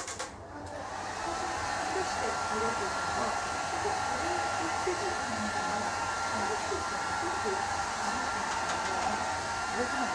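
Hair dryer blowing steadily, coming on about a second in: an even rush of air with a thin steady whine in it.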